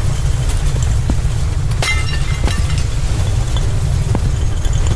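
Volcano eruption sound: a loud, steady low rumble with scattered crackles and snaps over it, and one sharper crack about two seconds in.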